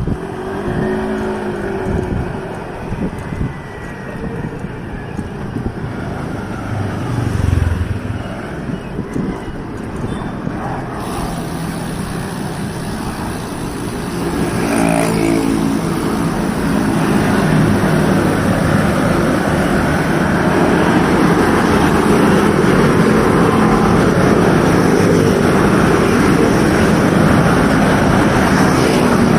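Motor vehicles passing on the road, their engines rising and falling as they go by, over a steady rush of wind and road noise that grows louder about halfway through.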